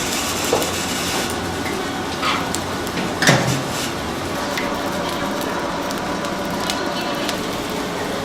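Food-preparation clatter: scattered clicks and knocks over a steady background noise, the loudest knock a little over three seconds in.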